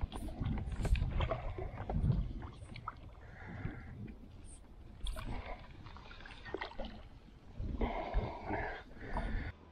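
A hooked carp splashing at the surface as it is drawn over a landing net and netted. Knocks and rumble come from the net pole and handling close to the microphone, with louder noisy splashes near the end.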